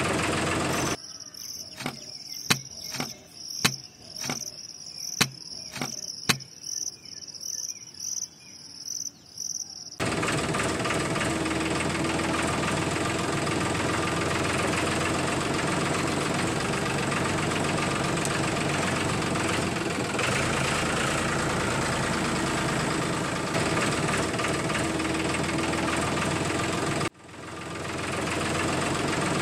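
A tractor engine idling steadily. For several seconds early on it stops, and a cricket chirps repeatedly with a few sharp clicks. The engine sound returns, cuts out briefly near the end and fades back in.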